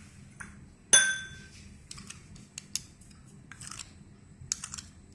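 A steel spoon clinks once against a bowl about a second in, with a short metallic ring, then faint scattered taps and scrapes as it scoops salt from a small glass bowl.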